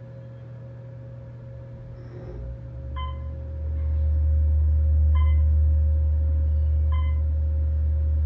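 Otis Series 1 traction elevator starting up and climbing, heard inside the cab: a low motor hum builds after about two seconds and then holds loud and steady. Short beeps sound about every two seconds as the car passes floors.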